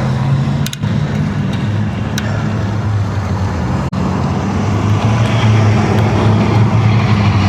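Motor vehicle running at a steady pace: a constant low engine hum with road noise, and a few light clicks.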